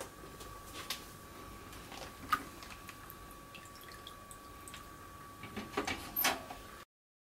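A plastic zip-top bag holding cooked roast beef lifted out of a pot of hot water: water dripping and splashing back into the pot, with crinkles and taps of the wet plastic bag. Scattered small drips and clicks give way to a cluster of louder splashes and crinkles near the end.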